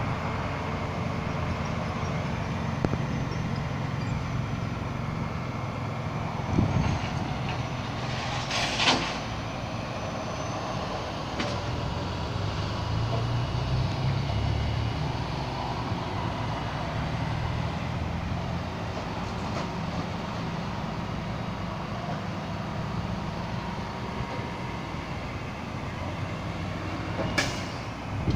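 Vehicle engines running with a steady low rumble, with a few brief knocks and a short hiss-like burst about nine seconds in.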